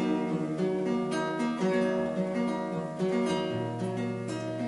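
Acoustic guitar strumming chords, an instrumental interlude between sung lines of a hymn.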